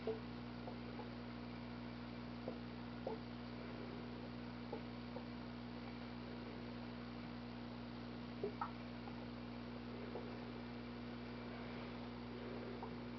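Steady low hum of running aquarium equipment, with a few short clicks scattered through it, two close together past the middle.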